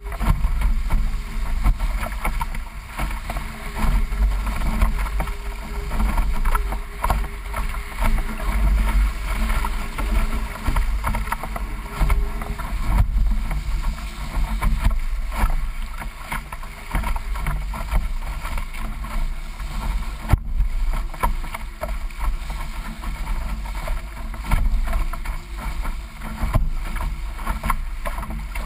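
Water rushing and splashing along the bow of a D-One sailing dinghy under way, with a heavy, steady low rumble of wind buffeting the microphone.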